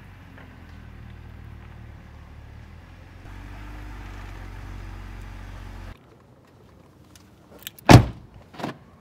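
BMW 3 Series sedan's engine idling with a steady low hum, which stops abruptly about six seconds in. Near the end a car door shuts with a loud thud, followed by a smaller knock.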